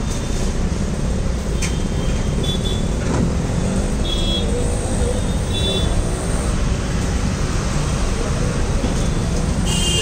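Steady roadside traffic noise, a continuous low rumble of passing vehicles, with a few faint short high-pitched tones over it.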